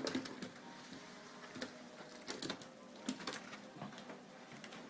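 Faint, scattered clicks and taps, a few a second at irregular intervals, from small pets moving about their cage.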